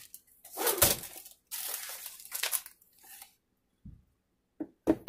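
Plastic wrapping and bags of a diamond painting kit crinkling and rustling as they are handled, in several bursts, with a few short knocks near the end as items are set down.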